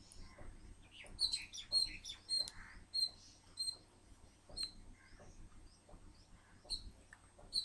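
Small birds chirping faintly: short, high chirps repeated irregularly, some sliding upward.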